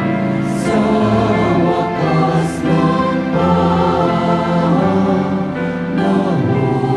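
Mixed choir of men and women singing a Mass acclamation in sustained chords, accompanied by an electronic keyboard.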